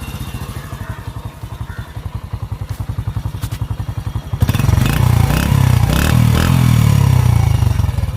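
Honda CD70's 72 cc air-cooled four-stroke single, stock exhaust, idling with an even putter. About four seconds in it is revved and runs louder for about three seconds, then drops back toward idle near the end.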